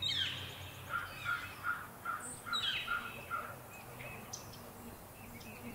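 Wild birds calling: two sharp calls that sweep down in pitch about two and a half seconds apart, and between them a run of about eight short, evenly spaced notes.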